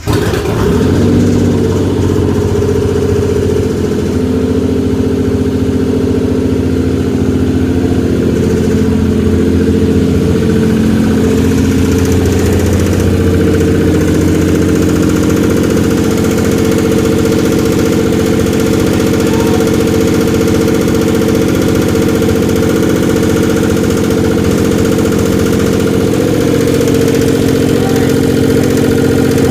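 Dodge Stealth's twin-turbo 3.0-litre V6 firing up and idling, after being brought back from a hydrolock. Its note wavers for the first several seconds, then settles into a steady idle with the lifter tick the owner points to.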